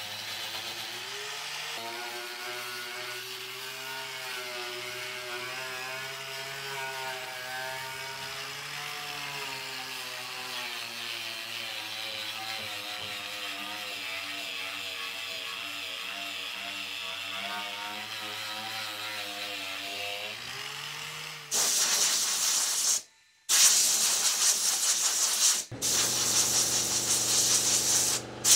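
Handheld power tool with a wire brush running against the car's underside, stripping loose undercoating, its motor pitch wavering as it bears on the metal. About 21 seconds in, a loud compressed-air blowgun hiss takes over, in several blasts with short breaks.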